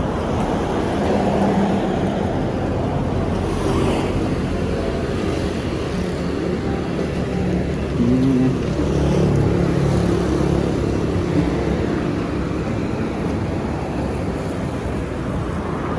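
Street traffic: vehicles driving past on a city road, a steady rumble of engines and tyres.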